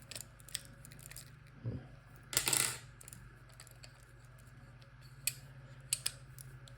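Small metallic clicks of a disc-detainer pick working in an Abloy Classic padlock, with one louder scrape lasting about half a second, about two and a half seconds in.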